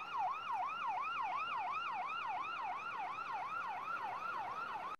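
Electronic emergency-vehicle siren on its fast yelp setting, its pitch rising and falling about three times a second; it cuts off suddenly at the end.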